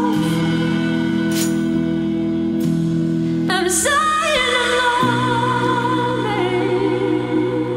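Slow song with held low chords; a singing voice with vibrato comes in about halfway through and holds long notes.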